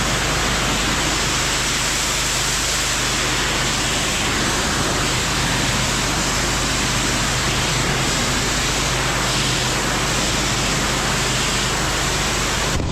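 Pressure washer spraying at high pressure: a loud, steady hiss of water with a low engine hum underneath, cutting off suddenly at the end.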